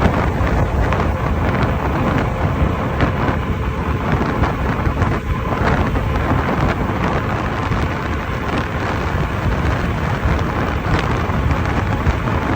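Wind buffeting the microphone over the rumble of an Inmotion V13 electric unicycle being ridden across rough off-road ground, with a faint steady whine. No clunking is heard from its newly repaired suspension.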